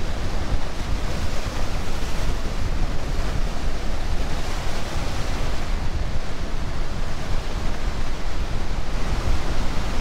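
Lake waves breaking and washing up on a sandy shore, with strong wind buffeting the microphone as a steady low rumble.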